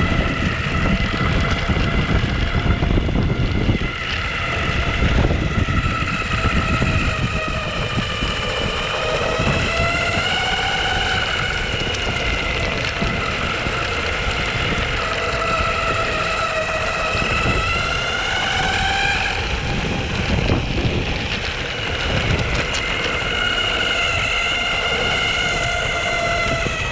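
Onsra Black Carve electric skateboard's belt-drive hub motors whining in motion, the whine rising and falling in pitch as the board speeds up and slows, over a steady low rumble.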